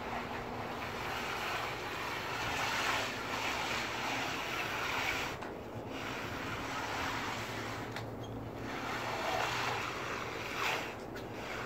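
Bull float sliding back and forth over wet, freshly poured concrete: a long, even swishing that swells with each stroke and dips briefly where the float changes direction.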